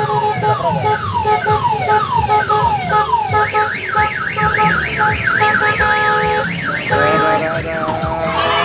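Electronic siren sound effects played through a tourist mini train's horn loudspeaker: a falling sweep repeating about two and a half times a second, then a fast up-and-down warble from about three seconds in, over steady held tones. The pattern changes again near the end, with the train's engine rumbling underneath.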